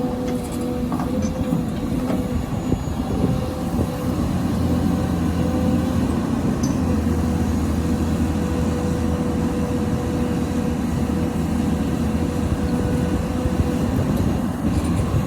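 Hydraulic excavator's diesel engine running under working load, with a steady whine riding over the engine note. A few knocks sound in the first three seconds, and the low rumble grows heavier about four seconds in.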